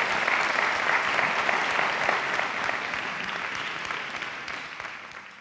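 Audience applauding, fading away toward the end.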